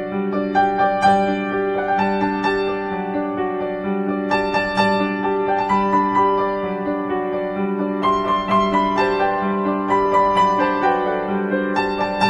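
Background music played on a keyboard: a slow melody over a steady low held tone.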